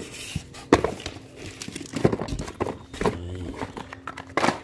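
Cardboard boxes and boxed parts being shifted and rummaged through: rustling cardboard with irregular knocks and clunks, the sharpest knock about a second in.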